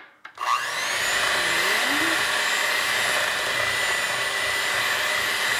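Electric hand mixer switched on about half a second in, its motor spinning up with a rising whine and then running steadily as its beaters whip heavy cream with powdered sugar toward stiff peaks.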